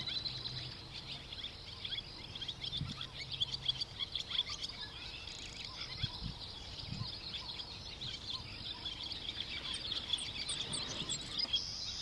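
Bush ambience: a steady high insect drone with many short bird chirps over it, and a few higher rising bird calls about ten seconds in.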